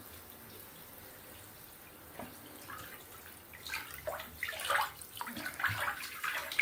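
Bathwater in a filled tub sloshing and dripping, faint at first, with small splashes from about two seconds in that come more often towards the end.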